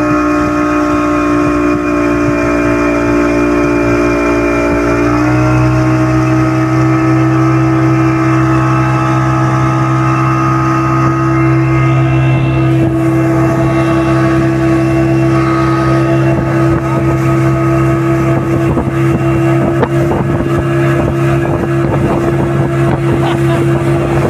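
Motorboat engine running steadily and loudly, its pitch stepping up slightly about five seconds in as it speeds up a little.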